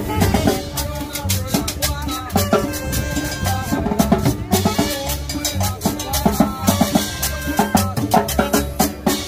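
Latin dance music played by a street band, with busy percussion and maracas over a pulsing bass line in a steady dance rhythm.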